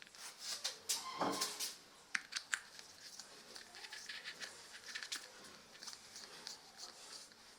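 Hand work on small parts: scattered clicks and taps with rustling and scraping between them, and a brief squeak about a second in.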